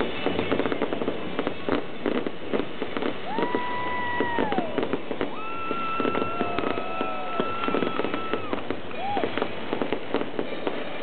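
Fireworks show: a rapid, continuous run of bangs and crackles from bursting shells. Several long, steady whistle-like tones sound over them partway through, one dropping in pitch as it ends.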